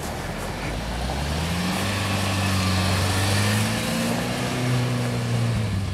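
UAZ Patriot's engine pulling hard as the SUV ploughs through snow deeper than its sills: the revs rise about a second in and then hold steady, over a constant hiss.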